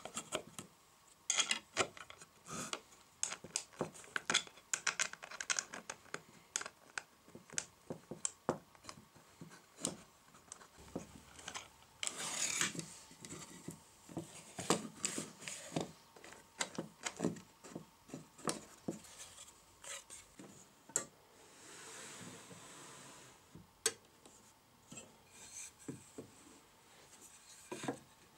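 Wooden jig parts handled on a wooden workbench: a slotted wooden arm sliding and rubbing over its pin and bolt, with many light wooden knocks and clicks and a few longer scraping rubs.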